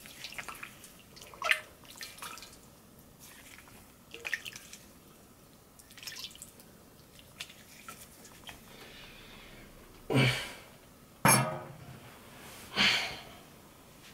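Water splashing and dripping as hands scoop water from a steel bowl onto the face, rinsing off shaving foam, with three louder splashes near the end.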